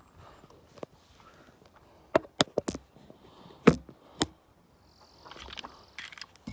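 Six pistol shots in rapid fire about two seconds in: four in quick succession, then two more at roughly half-second gaps, the fifth the loudest.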